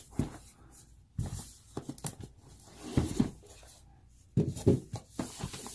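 A cardboard board-game box and its paper rulebooks being handled: scattered rustles and a few light knocks as pieces are moved and set down.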